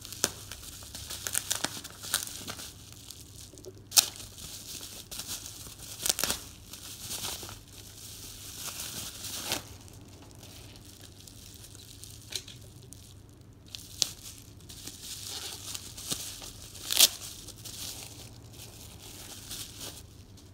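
Parcel packaging being torn open and handled by hand: continual crinkling and tearing, broken by sharp snaps, the loudest about four and seventeen seconds in.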